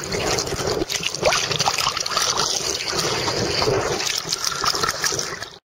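Sea water splashing and sloshing close to the microphone as it dips by the surface beside an inflatable lilo, with some wind on the microphone. The sound cuts off suddenly near the end.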